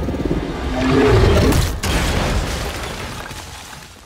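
Monster roar from film sound design: a loud, deep creature roar over a booming low rumble. It swells to its peak about a second in, breaks off briefly, then fades away over the last two seconds.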